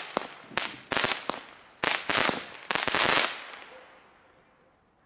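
Lesli Schnuffelhase, a small F2 consumer firework battery, firing its final shots: several sharp bursts in quick succession, the last and loudest group about three seconds in, after which the sound dies away as the battery burns out.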